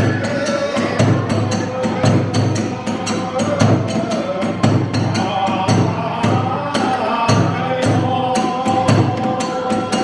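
Hiroshima kagura hayashi music: a taiko drum and small hand cymbals struck in a fast, steady beat, with a bamboo flute playing held notes over it.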